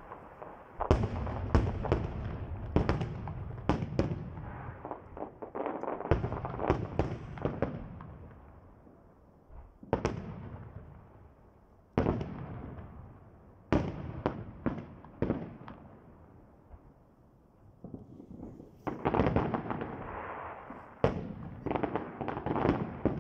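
Aerial firework shells bursting: clusters of sharp bangs, each trailing off in echo, coming in volleys a few seconds apart with two quieter lulls in between.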